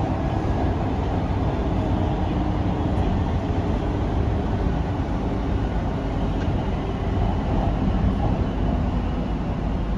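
Kuala Lumpur MRT train running at speed, heard from inside the carriage: a steady low rumble with an even rushing noise of wheels on track.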